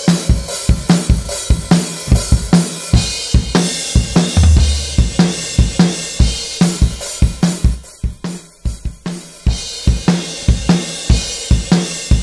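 Drum-kit track playing through a bus compressor plugin: kick, snare, hi-hats and cymbals in a steady groove, with a held low boom about four seconds in and a quieter stretch around eight seconds in.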